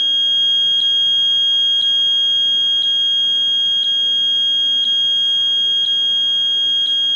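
An Arduino gas meter's alarm buzzer sounds one continuous high-pitched tone, with a faint tick about once a second. It is the high-carbon-monoxide alarm, set off by a very high CO reading from the MQ2 gas sensor.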